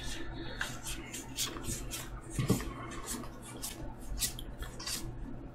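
Trading cards being flicked and slid against one another while being sorted through by hand, a string of short papery flicks and rustles, with a soft knock about halfway through.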